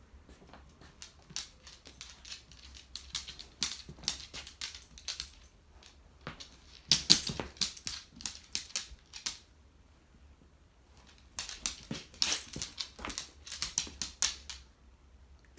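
Dog's claws clicking and tapping on a hardwood floor as it moves about, in three runs of quick clicks with short pauses between.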